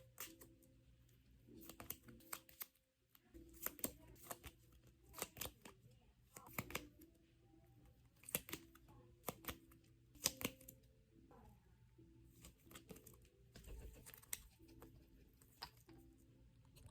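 Scattered light clicks and taps at an uneven pace, as of small merchandise items and packaging being handled and set down, over faint room hum.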